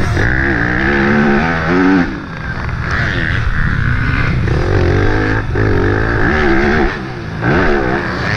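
Yamaha YZ250F's single-cylinder four-stroke engine under hard riding, its note climbing and dropping several times as the throttle is opened and rolled off, heard close up from the rider's helmet camera.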